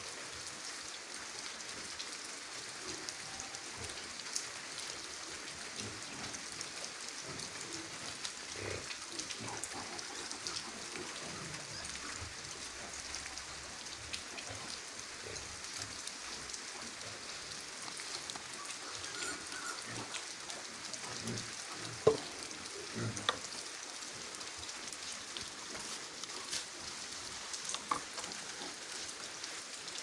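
Light rain pattering steadily, with a few sharp clicks about two-thirds of the way through.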